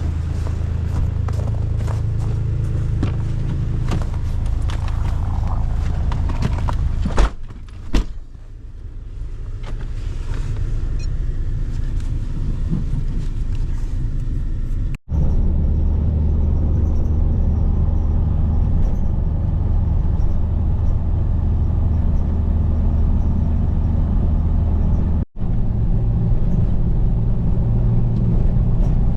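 Motor vehicle on the move: a steady low engine and road rumble, with a couple of sharp knocks about seven seconds in and two momentary cut-outs later on.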